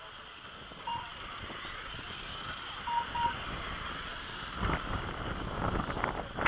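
Outdoor ambience by an RC car track: a steady hiss with a short beep about a second in and a quick double beep about three seconds in, typical of a race lap-timing system as cars cross the line. In the second half the microphone picks up low, rough buffets of wind.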